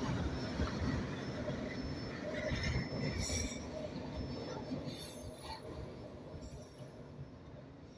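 Norfolk Southern mixed freight train rolling past on the rails, its low rumble fading steadily as the cars move away, with a few brief faint wheel squeals and clinks midway.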